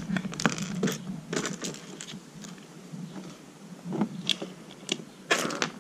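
Plastic Lego bricks clicking and rattling as they are handled and pressed together, a series of small irregular clicks with a louder cluster near the end.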